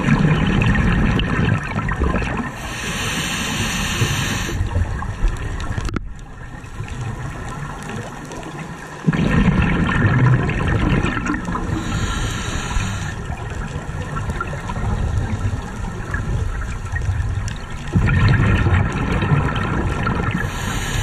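Scuba diver breathing through a regulator underwater: three long rumbling bursts of exhaled bubbles, each followed by a shorter hiss of air drawn through the regulator, about every nine seconds.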